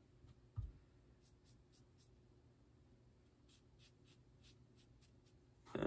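Faint scratching of a marker drawing short lines on tape wrapped over a hand: a few brief strokes in two small groups, with one soft thump about half a second in.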